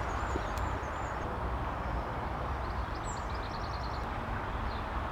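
Open-air ambience: a steady low rumble with a small bird giving a quick run of about eight high chirps a little under three seconds in, and a few fainter high calls around it.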